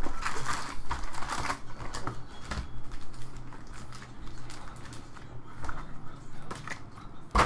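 Trading cards and pack wrappers being handled: scattered rustling, sliding and light clicks, busiest in the first second and a half, with one sharper click near the end, over a low steady hum.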